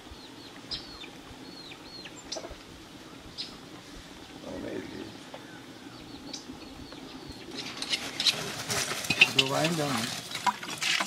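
Faint outdoor ambience with small bird chirps, then, about two-thirds of the way in, large metal cooking pots clattering and scraping as they are handled, with voices talking over them.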